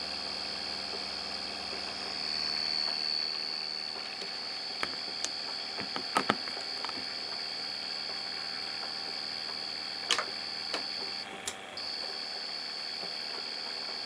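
Homemade reed switch motor running at 30 V: a steady high-pitched whine over a low hum. A handful of sharp clicks comes around the middle, and the whine drops out briefly near the end.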